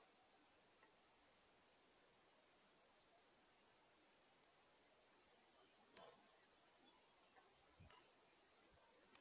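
Northern cardinal giving sharp, high chip notes, one about every two seconds.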